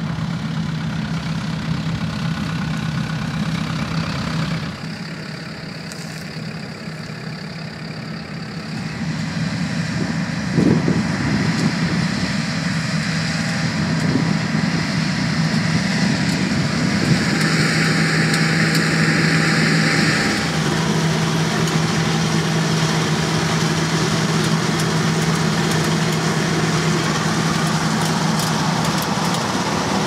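John Deere S670i combine harvester running with a steady engine hum. The sound drops away about four seconds in and builds back up. There is a sharp knock about ten seconds in, and a few seconds of hiss a little past the middle.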